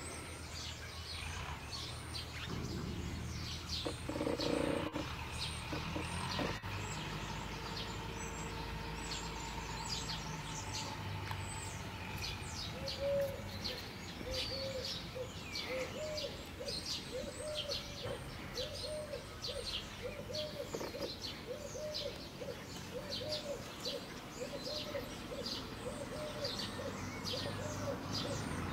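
Bird chorus: many small birds calling in short, high chirps that drop in pitch. From about a third of the way in, a steady run of low, rounded notes repeats a little faster than once a second.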